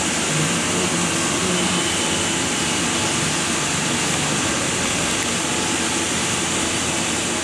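Steady, loud rushing hiss with a faint low hum beneath it, cutting off abruptly at the very end.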